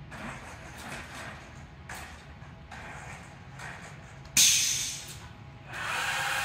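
FIRST Robotics Competition robot picking up a cone game piece, its motors whirring. About four seconds in comes a sudden loud hiss that dies away within half a second, and near the end a steadier, louder whine as the mechanism moves.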